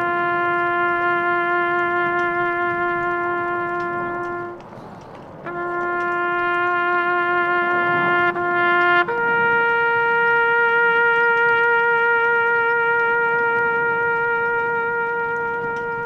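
A trumpet playing slow, long-held single notes: a low note held for a few seconds, a short break, the same low note again, then a note a fourth higher held long and fading out near the end.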